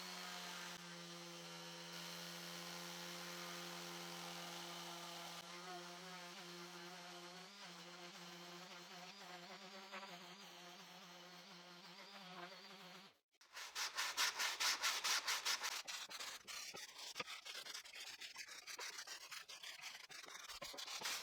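Electric orbital sander running steadily on wood with 150-grit paper, a faint even motor hum that wavers slightly as it is worked. About thirteen seconds in it stops and hand sanding takes over: sandpaper rubbed back and forth on the wood in quick strokes, a few a second.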